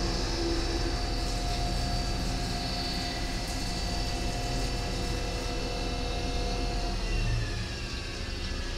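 CNC lathe cutting under flood coolant: a steady hiss of coolant spray with the whine of the spindle drive running. About seven seconds in, the whine changes pitch as the spindle speed shifts.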